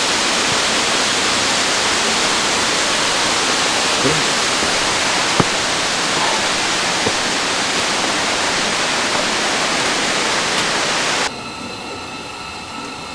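Steady rushing of a nearby waterfall, with a couple of faint knocks. About eleven seconds in it cuts off sharply to a quieter, steady low hum with a few faint steady tones.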